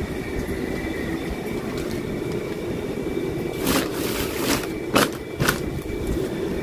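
Plastic shopping bags rustling and crinkling in short bursts as they are pushed into a fabric-lined travel bag, mostly in the second half, over a steady background hum.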